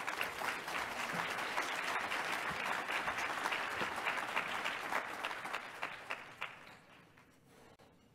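Audience applauding: many hands clapping in a dense patter that thins out and fades away near the end.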